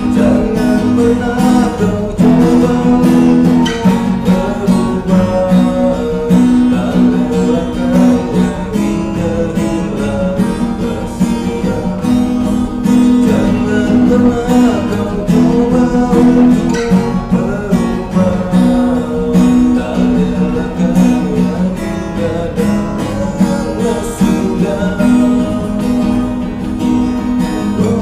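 Acoustic guitar strummed in a steady rhythm, with a man's voice singing over it.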